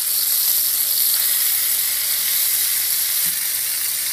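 Spice-marinated tilapia pieces and curry leaves shallow-frying in hot oil in a wide pan, giving a steady sizzle.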